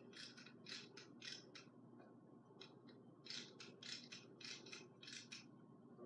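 Quick scratchy scraping strokes, about three a second, in a short run near the start and a longer run after a pause of about a second, heard faintly through a TV's speaker.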